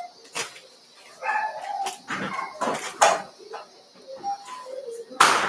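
A dog barking and whining a few times, in short separate calls with sharp bark onsets about 3 s in and again near the end.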